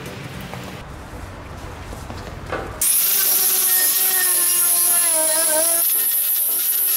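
Electric angle grinder with a brush wheel starts abruptly about three seconds in and runs loud and steady against the rusted exhaust flange: a high scouring hiss over a motor whine that sags in pitch briefly as it is pressed onto the metal. It is cleaning the flange's contact face before a muffler is fitted.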